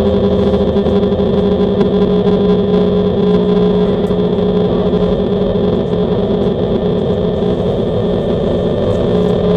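Airplane engine sound effect: a steady, pitched engine drone that holds its note without breaks.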